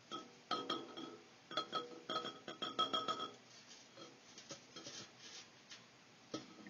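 A small sealed lead-acid battery on a wire hook knocking against a glass jar as it is lifted out, the glass ringing after each knock. The knocks come in a quick run over the first three seconds, then a few fainter taps follow.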